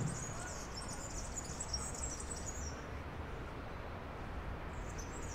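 Outdoor park ambience: small birds twittering high-pitched, pausing about halfway through and starting again near the end, over a low steady background rumble.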